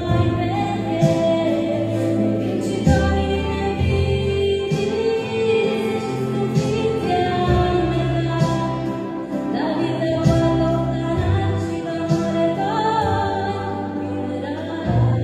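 A woman singing an Italian pop ballad live into a handheld microphone over a backing track with sustained bass notes and light percussion.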